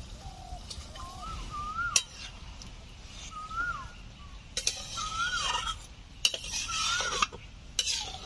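A spatula stirring curry in a cooking pan, scraping and clinking sharply against it four times. A bird calls repeatedly in the background with short rising-and-falling notes.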